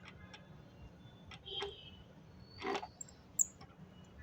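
Faint, scattered clicks and short metallic scrapes, a few in all, from a spanner and an AC pipe fitting nut being handled and threaded on.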